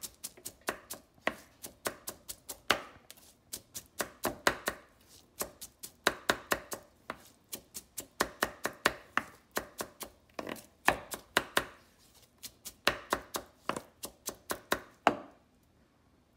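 Knife chopping diced mango finely on a wooden cutting board: quick runs of sharp knocks, several a second, in bursts. The chopping stops a little over a second before the end.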